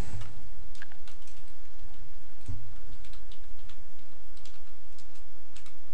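A handful of scattered keystrokes on a computer keyboard, typing a web address, over a steady low hum.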